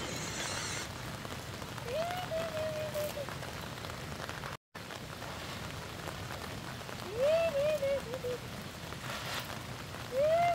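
Steady hiss of rain. Over it, a drawn-out call rises and then holds, wavering, three times: about two seconds in, about seven seconds in, and near the end.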